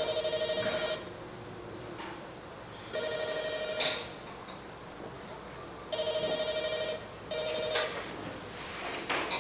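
Telephone ringing with a warbling electronic trill, in bursts about a second long roughly every three seconds. A few sharp clacks fall between the rings, the loudest near the end of the second ring.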